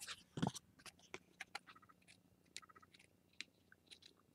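Faint, scattered small clicks and crackles of paper and craft supplies being handled, with a soft knock about half a second in.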